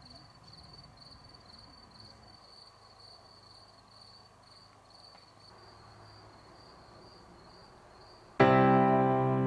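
Faint cricket chirping, a steady high pulse about two to three times a second. About eight seconds in, loud piano music starts and covers it.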